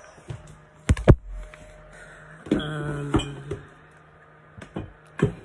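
Sharp knocks and clinks of small skincare jars and bottles being handled and put down. The two loudest come close together about a second in, with a few lighter ones near the end.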